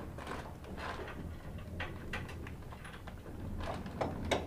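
An adjustable spanner working the joint bolt of a bus duct, giving scattered light metallic clicks and clinks over a low steady hum.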